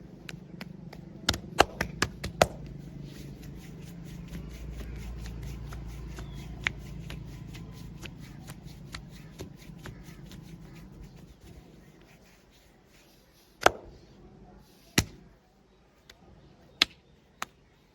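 Sharp cracks of joints being popped during a body-cracking adjustment: a quick run of about five a little over a second in, then single cracks spaced out over the last few seconds. A low hum with faint rapid ticking runs under the first part and fades away.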